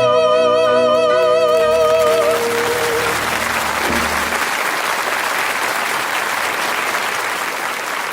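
Final sung note held with vibrato over piano, ending about two to three seconds in, then audience applause that carries on and slowly fades.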